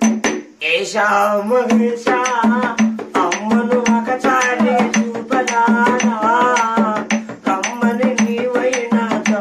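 A man singing a Telugu folk song over a steady tapping beat, about three or four taps a second, which he keeps on a small hand-held percussion piece.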